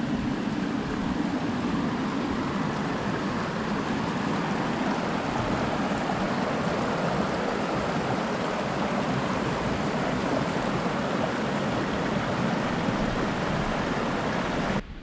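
Small mountain creek running over rocks: a steady rushing of water that cuts off abruptly near the end.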